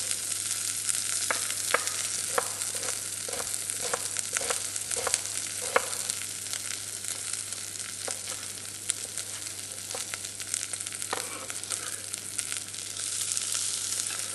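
Sliced leeks and garlic sizzling steadily in olive oil in a stainless saucepan, sweating until glossy. Over it, a chef's knife knocks on a wooden cutting board as an onion is sliced, about two strokes a second in the first six seconds, then a few more.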